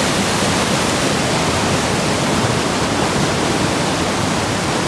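A river in flood rushing over rocks as whitewater: a loud, steady roar of water.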